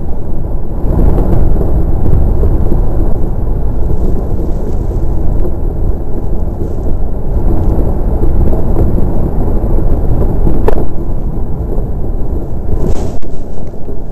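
DN iceboat's steel runners running over smooth, clear lake ice, a loud, steady low rumble. A single sharp crack comes near the end.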